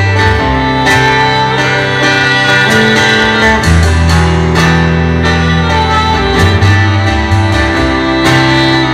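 Live band playing an instrumental passage of a pop-rock song: electric guitar over held bass notes and a steady drum beat.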